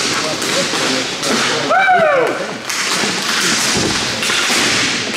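Hockey game in play: the steady scrape of skating with sharp clacks of sticks and puck, players' voices in the background, and a falling shout about two seconds in.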